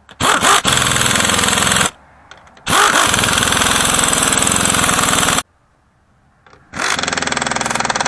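Cordless impact driver with a socket hammering seat bolts tight: three runs of rapid impacts, the middle one the longest, with short pauses between.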